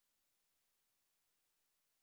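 Near silence: only a very faint, even hiss.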